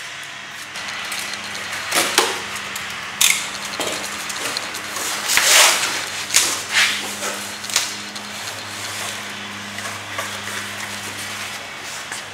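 Cardboard shipping box being opened by hand: several sharp rips and scrapes of the flaps and tape, one of them longer about five seconds in, then softer rustling as packing paper is pulled out, over a steady low hum.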